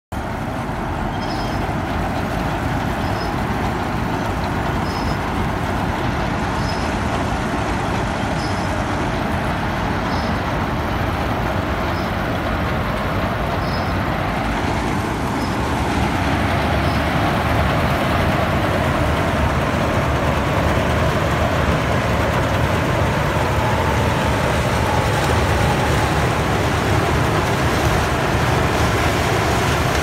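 New Gurdeep combine harvester running while harvesting rice: a steady engine and threshing-machinery noise that grows louder about halfway through.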